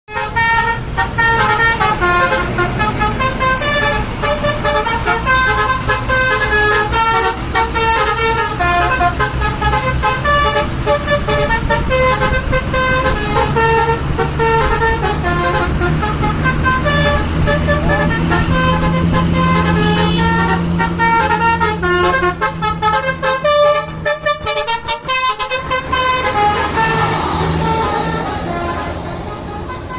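Basuri telolet multi-tone air horn on a bus playing a fast tune of short pitched notes several times a second over the bus engine's steady low running. The horn notes thin out and stop about 26 seconds in, leaving the engine and road noise.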